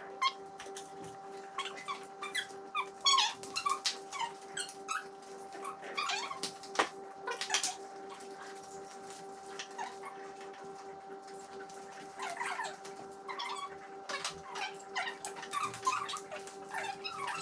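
Small pets' short, high-pitched cries in quick clusters, sparser in the middle, over a steady hum.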